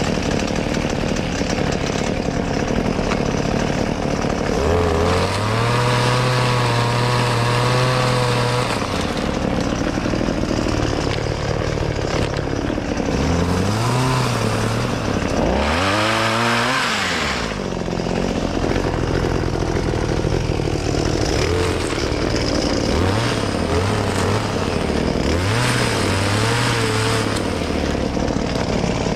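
Petrol pole saw, a chainsaw on an extension pole, working through branches: the engine sits at a fast idle and is throttled up again and again, its pitch climbing and dropping back in about seven surges, the longest about three seconds long a fifth of the way in.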